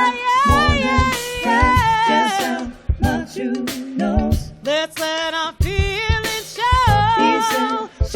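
A woman singing a slow pop ballad, holding long notes with vibrato and breaking into quick melodic runs.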